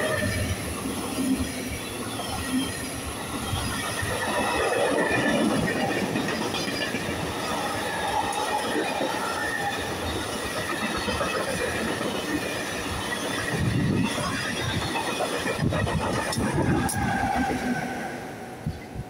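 Diesel-hauled freight train running through a station at speed: a long rake of flat wagons rumbling and rattling over the rails, with a high steady whine from the wheels over the noise. It dies away near the end as the last wagon passes.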